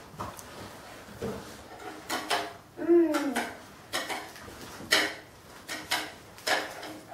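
A toy spoon and plastic dish clinking and knocking on a table, about eight separate clatters spread unevenly. About three seconds in, a child makes a short voice sound that rises and falls in pitch.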